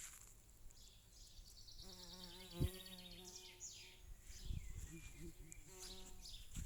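Backyard chicken calling faintly: a drawn-out, wavering call about two seconds in and a shorter one near the end. A single sharp knock comes during the first call.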